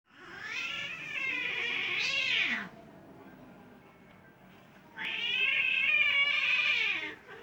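Cats yowling at each other in a fight standoff: two long, wavering yowls of about two and a half seconds each, the second starting about five seconds in, each dropping in pitch as it ends.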